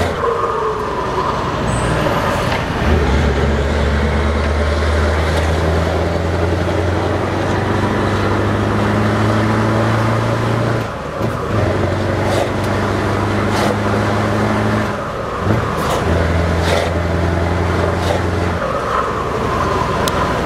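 Scania 164L 580's 16-litre V8 diesel with open exhaust pipes pulling through the gears, heard from inside the cab. Its steady note rises, then cuts away briefly about halfway through and again about three-quarters through as gears are changed, and settles at a lower pitch after each break.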